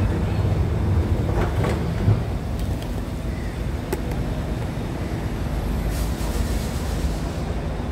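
Alstom Movia R151 metro train pulling out of the station: a steady low rumble of the train running, with a couple of sharp clicks.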